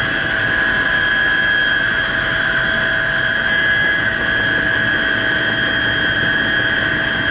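Helicopter cabin noise heard from inside the cockpit in flight: the turbine engine and rotor make a loud, steady noise with a constant high whine.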